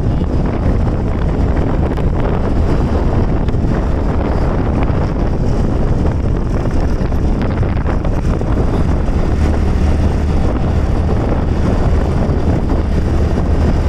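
Wind rushing over the microphone of a motorcycle under way, with the engine's low hum running steadily beneath it.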